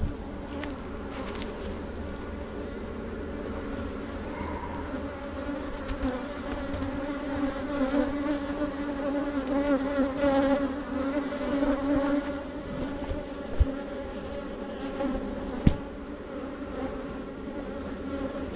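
Many agitated honeybees buzzing around the hive, a dense wavering hum that swells in the middle. Two brief sharp knocks come near the end.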